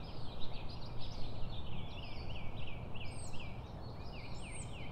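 Outdoor chorus of many overlapping short, high chirping calls, several a second, over a low steady hum.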